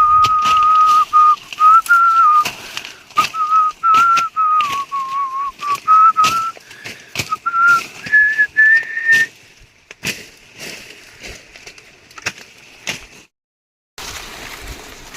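A person whistling a tune, holding notes and stepping between them for about nine seconds and ending on higher notes, over scattered sharp clicks and knocks.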